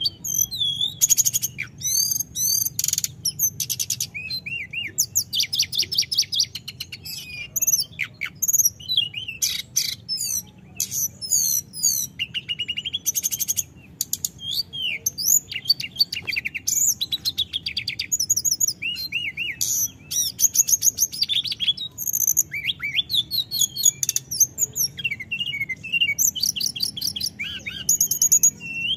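Hill blue flycatcher (tledekan gunung) singing continuously: a long, varied run of high whistled sweeps and fast trills with hardly a pause.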